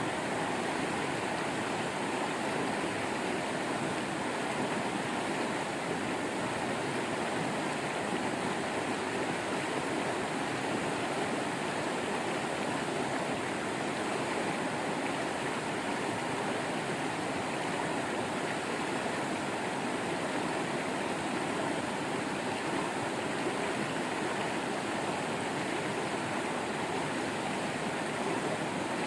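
Small waterfall splashing and rushing in a steady stream of water.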